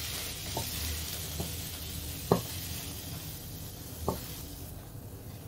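Stir-fried bitter melon sizzling faintly in the wok, the hiss fading away over a few seconds, with a few light knocks, the loudest about two seconds in.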